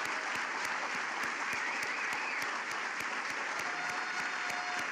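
A large audience applauding with dense, steady clapping, a sustained ovation.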